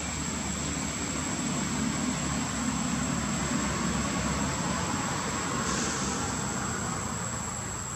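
Low rumble of a distant engine, swelling about two seconds in and easing off, over a steady high-pitched insect whine.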